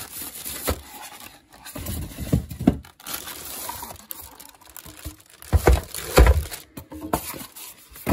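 Plastic wrapping rustling and crinkling as a UPS in its plastic bag and polystyrene foam packing is pulled out of the box, with dull handling knocks in two clusters, about two seconds in and again around six seconds in.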